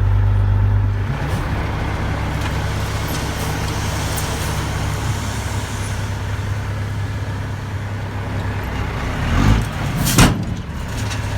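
Dump truck's diesel engine running steadily while driving, with a short sharp burst of noise about ten seconds in.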